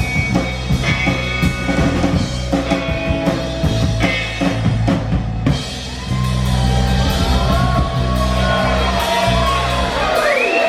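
Live rock band playing the instrumental close of a song: a driving drum beat with bass for the first half, then a held low bass note under high notes sliding up and down, with the low end cutting out just before the end.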